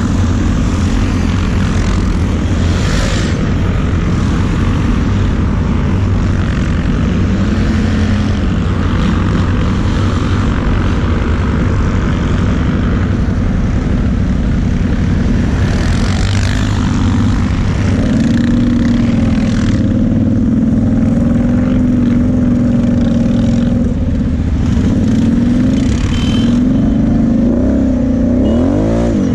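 ATV engine running as the quad is ridden across sand, its pitch rising and falling with the throttle and climbing in a quick rev near the end.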